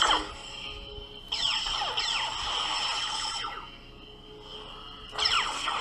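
Neopixel lightsaber's sound board playing saber effects through its built-in speaker: a steady electric hum with loud swing sounds that fall in pitch, in three bursts, the longest about a second in and a short one near the end.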